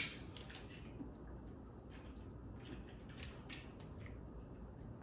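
Faint, irregular clicks and soft squishes of hands peeling a boiled shrimp, a few small cracks a second apart.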